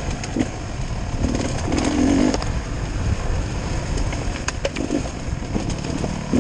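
Dirt bike engine running at low to moderate revs with short throttle blips, along with a few sharp knocks and rattles from the bike over rough trail.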